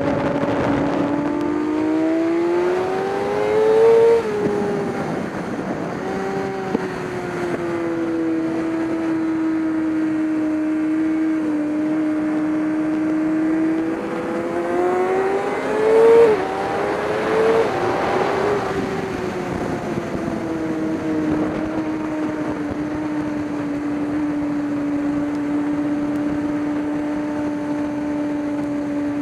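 Race car engine under power. The revs climb and drop sharply at gear changes about four seconds in and twice between sixteen and eighteen seconds, and otherwise run at a steady pitch.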